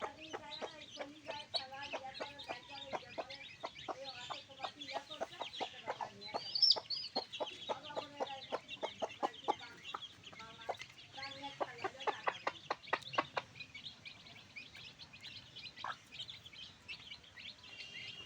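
A flock of backyard chickens clucking: many short, overlapping clucks, with one louder, higher call about a third of the way through. The clucking thins out in the last few seconds.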